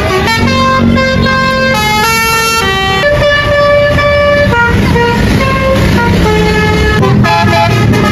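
Bus telolet horn playing a melody: several held horn notes at once that step up and down in pitch every half second to a second, over the low, steady sound of the bus engine.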